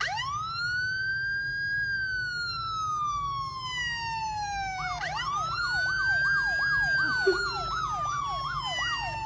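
Emergency-vehicle siren: a long wail that rises quickly and then slowly falls, starting over about five seconds in with a fast up-and-down yelp, about two sweeps a second, over the wail.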